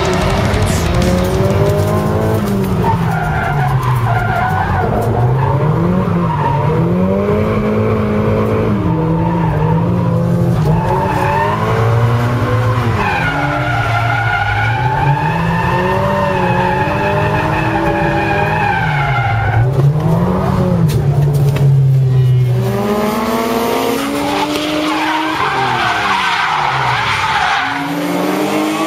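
Drift cars, a Nissan Silvia S15 among them, with engines revving up and down hard through the slides and tyres screeching. Near the end several engines are heard at once, their pitches rising and falling over one another.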